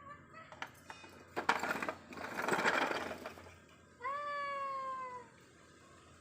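Two-month-old German Shepherd puppy giving one long, high whine that falls slightly in pitch, about four seconds in. Before it come two short, louder noisy scuffles.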